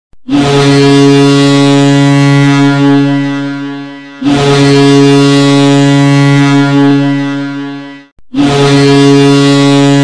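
Bakersfield Condors' hockey goal horn sounding three long, low blasts of about four seconds each, the first two trailing off and the third still going at the end; the horn signals a goal scored.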